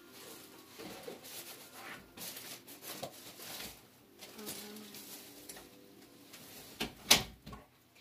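Scattered rustling and handling noises, with one loud, sharp knock about seven seconds in.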